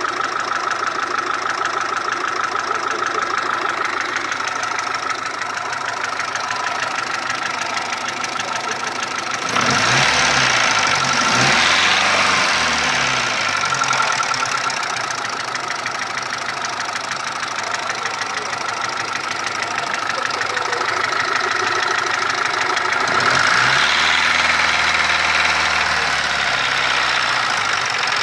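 Mitsubishi 1.3-litre petrol engine running at idle with an abnormal noise that appeared after an overhaul with a new cylinder head and block. It is revved twice, about ten seconds in and again about twenty-three seconds in, its pitch rising and falling each time.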